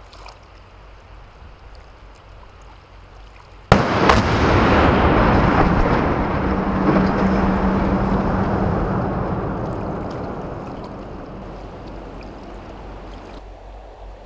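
Shaped demolition charges detonating on a steel truss bridge: a sharp blast about four seconds in with a second crack just after, then a long loud rumble as the steel spans fall into the river, fading away over several seconds.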